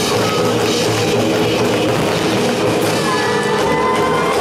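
Loud rock music played from a concert stage over its sound system.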